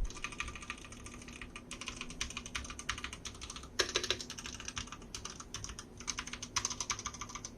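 Typing on a Kreo Hive mechanical keyboard with Outemu red switches: a quick, irregular run of key clacks, with a heavier stroke about four seconds in.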